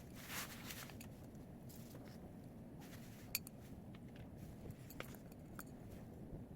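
Faint, scattered light clicks and taps of small hard objects being handled on a work surface, with a brief scraping hiss near the start and a sharper click about halfway through, over a low steady hum.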